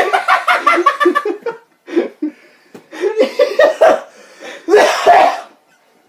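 Two men laughing hard in fits and gasps, the loudest burst about five seconds in.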